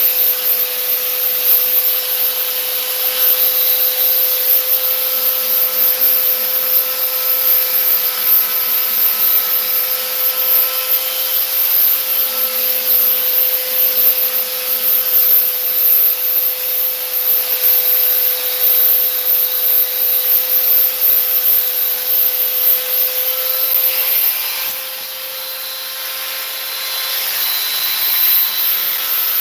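Handheld power tool sanding fiberglass body filler on a door: a steady motor whine with an abrasive rasping hiss. It eases off briefly near the end, then runs on.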